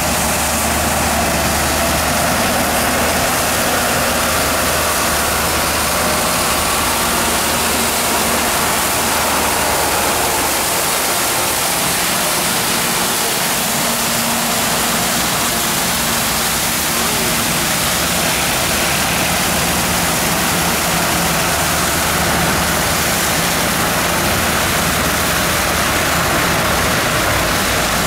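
Mobil Sweeper street sweeper working, its engine running under a loud, steady hiss of spinning brooms scrubbing the pavement. The engine's low hum is stronger in the first part and eases back later.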